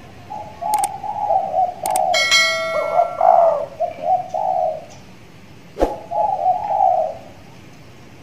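Spotted dove (tekukur) cooing in a run of phrases, then a second shorter phrase about six seconds in. A few sharp clicks and a bell-like ding come about two seconds in.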